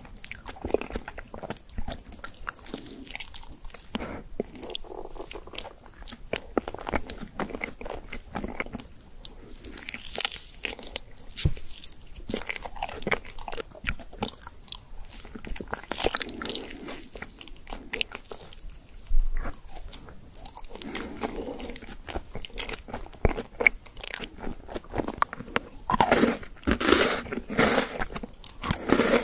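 Close-miked eating: biting and chewing of soft white desserts, with small sharp clicks and wet mouth sounds. Near the end comes crisp, dense crunching as a white-chocolate, cookie-crumb biscuit stick is bitten and chewed.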